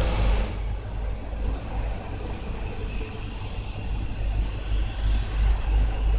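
DD56 diesel locomotive running, a steady deep rumble throughout.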